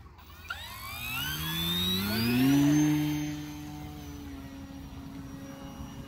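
Durafly Tundra V2 RC plane's electric motor and propeller throttling up for takeoff: a whine that rises in pitch and loudness for about two seconds, then settles to a steady, quieter drone as the plane climbs away.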